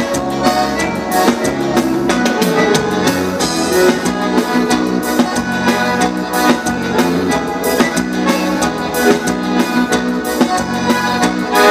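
Live vanera dance music: an instrumental break led by the piano accordion over drum kit and bass, with a steady dance beat.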